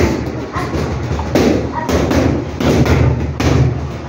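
Boxing gloves striking pads and bags in a busy gym: a run of irregular thuds, over the hubbub of voices.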